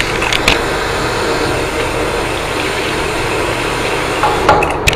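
Tap water running from a faucet into a sink while a cloth is rinsed and squeezed under the stream, with a few sharp knocks near the end.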